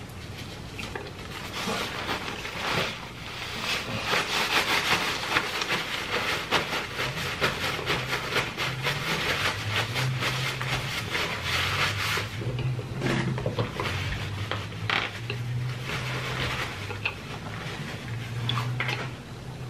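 A paper napkin crinkling and rubbing between hands as they are wiped, close to the microphone, busiest in the first half. A low hum that changes in pitch runs underneath in the second half.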